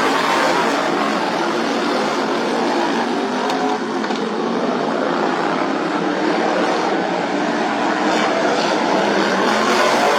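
Modified racing lawn mower engines running at high revs: a loud, steady engine drone that dips slightly about four seconds in.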